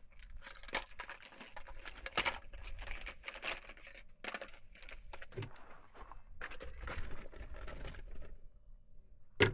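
Faint, irregular crunches and rustles, a few close together and then spaced out, with one sharper knock near the end.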